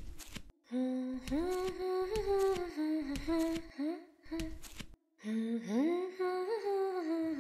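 A woman humming a slow tune in long, gliding notes, with a few short pauses. Under it, the small bells of silver anklets jingle and bare feet pad softly with each step.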